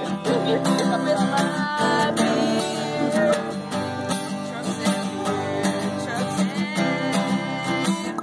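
Acoustic guitar strummed in a steady rhythm, with a voice singing along at times.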